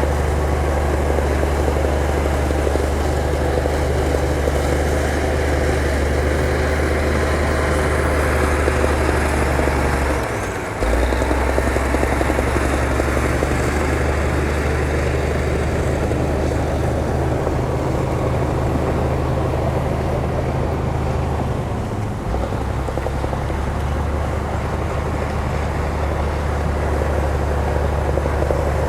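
Heavy earthmoving machine's diesel engine running steadily with a deep, even drone. The engine dips briefly twice, about ten seconds in and again about twenty-two seconds in, as the load or throttle changes.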